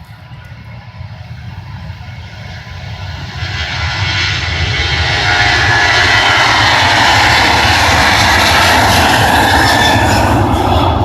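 Boeing 737 twin turbofan jet engines at takeoff thrust. The noise grows louder over the first five seconds or so, then holds steady and loud.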